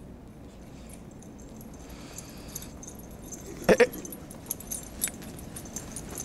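A dog gives a short double bark about three and a half seconds in, over quiet outdoor background; a run of light clicking and jingling follows.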